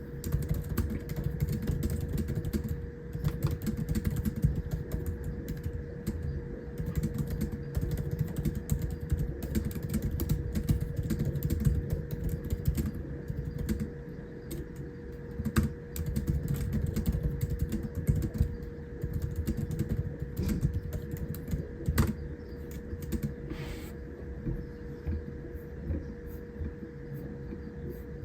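Typing on the keyboard of a 14-inch M3 Pro MacBook Pro: a quick, dense patter of key clicks that grows sparser in the second half, with a few louder single clicks.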